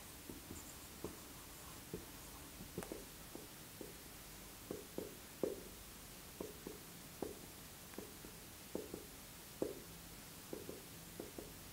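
Marker pen on a whiteboard: faint, quick short strokes and taps, irregular at about two a second, as a circle is shaded with small hatch marks.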